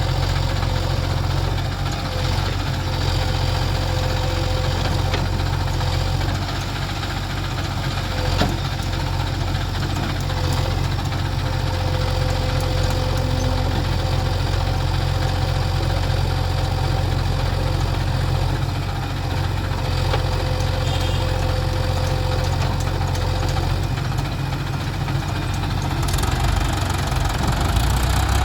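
JCB 3DX backhoe loader's diesel engine running steadily with a diesel clatter. There is a single sharp knock about 8 seconds in.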